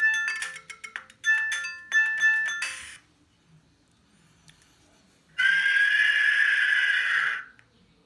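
Siemens S55 mobile phone playing its built-in tones through its small speaker: a quick melody of short beeping notes that ends about three seconds in, then after a pause one harsher, buzzy tone held for about two seconds.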